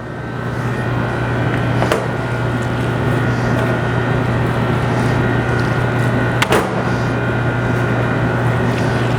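A loud, steady machine drone with a low hum, building up over the first second, with two sharp clicks about two seconds and six and a half seconds in.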